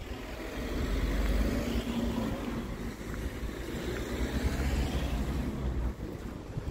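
Car driving along a road, heard from inside the cabin: a steady low rumble of road and engine noise with a light hiss of air over it.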